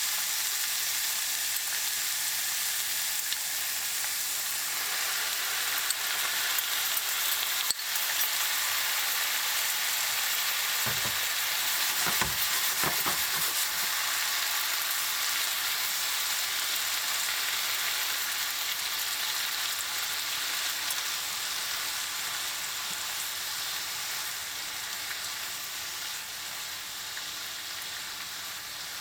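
Bok choy and fried tofu sizzling steadily in a frying pan in sesame oil and a soy-ginger sauce as they are tossed together, with a few knocks and thuds from the stirring. The sizzle eases slightly near the end.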